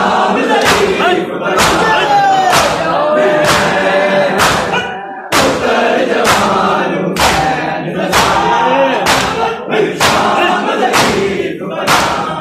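Crowd of mourners doing matam, striking their bare chests with their open hands in unison at a steady beat of about two slaps a second, while men's voices chant a lament over the rhythm. The slaps break off briefly about five seconds in, then resume.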